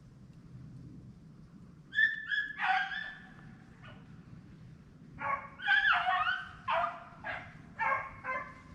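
Rabbit hounds baying: a few calls about two seconds in, then a longer run of several overlapping voices near the end, the sound of a pack giving voice while running a rabbit.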